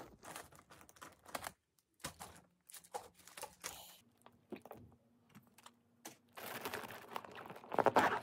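Handling noises from a fabric toiletry pouch, a medicine packet and a plastic water bottle: scattered clicks, taps and rustles as the bag is opened and the items are taken out, then a longer, louder rasping stretch near the end as the bag is handled again.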